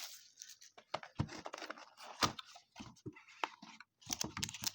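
Hands handling a cardboard trading-card hobby box and its foil card packs: scattered rustles, crinkles and light knocks, the sharpest about a second in and a little after two seconds.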